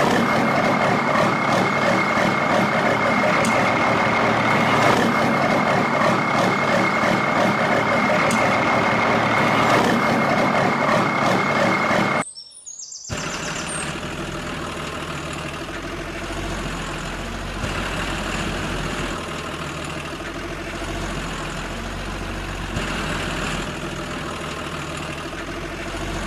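Truck engine sound running steadily, with a fixed high tone over it. About halfway through it cuts out for a moment, then carries on more quietly.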